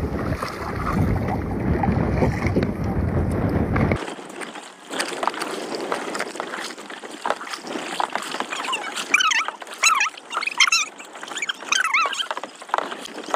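Wind and water rumbling on the microphone of a boat moving over the sea. After a sudden change about 4 s in, a kayak paddle dips and splashes in short strokes.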